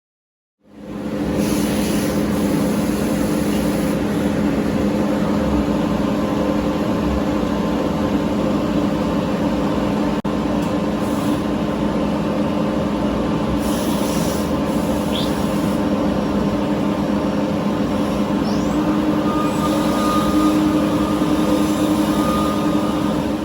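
Starrag Bumotec s191H CNC mill/turning center running: a steady machine hum with several fixed tones over a wash of noise. Brief faint rising squeaks come twice past the middle, and a higher tone joins near the end.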